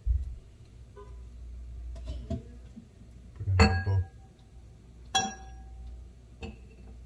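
Kitchenware knocking and clinking as lemons are squeezed with a plastic hand-held lemon squeezer over a plastic strainer. A low thump at the start and a few small knocks, then two louder clinks about a second and a half apart that ring briefly, and a softer knock near the end.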